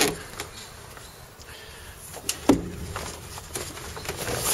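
Reefing line being hauled in by hand on a small wooden sailboat: rope and sailcloth rubbing and sliding, with one sharp knock about two and a half seconds in.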